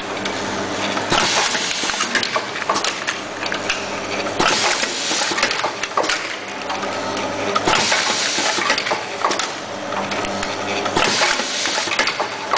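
An automatic screw-fastening machine is running: a steady mechanical hum with many small clicks, and louder noisy surges about every three seconds as its screwdriver heads work through a cycle.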